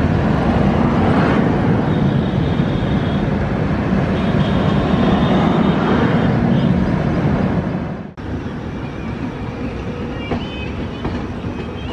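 Passenger train coaches rolling over the tracks below, a steady loud rumble of wheels on rail. About eight seconds in the sound cuts abruptly to a quieter rumble of another passenger train running past, with a few faint high tones near the end.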